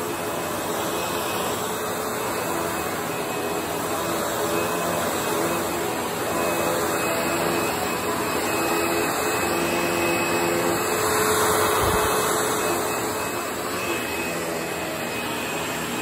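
Panasonic MC-V5005 bagged upright vacuum with a 12-amp motor running steadily as it is pushed over a hard tile floor, a constant rushing hiss with a steady motor tone.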